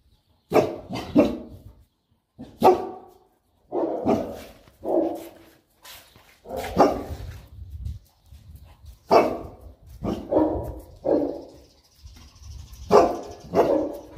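Boerboels barking in play: deep barks in clusters of two or three, about a dozen in all, with short pauses between.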